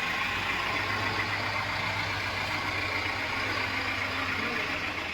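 Heavy diesel engine of a backhoe loader or farm tractor running steadily, with a low steady hum that drops away near the end.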